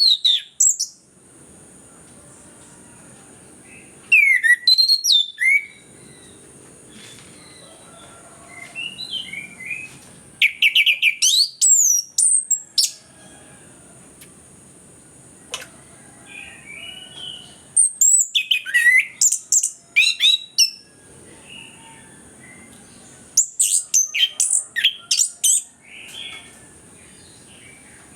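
Chestnut-capped thrush (anis kembang) singing in several bouts of rapid, sweeping high notes a few seconds apart, over a steady thin high hiss.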